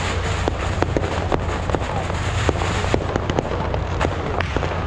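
Firecrackers popping at irregular intervals, several a second, over the hubbub of a crowd and a steady low rumble.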